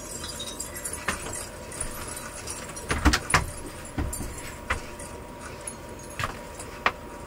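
Scattered clicks, knocks and light rattling from someone rummaging and handling small objects, loudest as two sharp knocks about three seconds in, over a faint steady tone.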